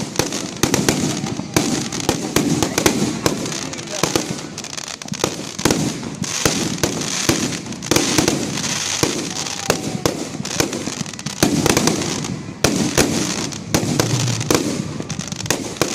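Fireworks going off in rapid, irregular succession, many sharp bangs and pops one after another, over the chatter of a crowd.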